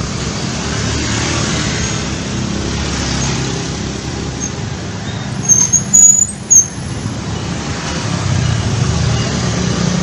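Street traffic: a steady rumble of passing cars and motorbikes. About six seconds in come a few short, loud, high-pitched blips.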